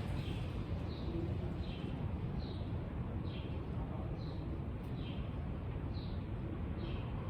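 A small bird calling over and over: short, high, falling chirps a little under one a second, alternating slightly in pitch, over a steady low rumble.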